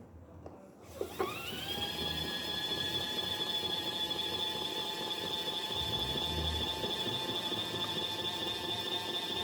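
Mini washing machine's spin motor starting its spin cycle: after a brief knock about a second in, a whine rises quickly in pitch and settles into a steady high hum as the spin basket reaches full speed.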